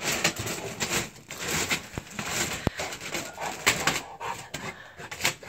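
Clear plastic bag of carrots crinkling and rustling in irregular bursts as a large dog noses and paws at it, with a couple of sharp clicks about two seconds in.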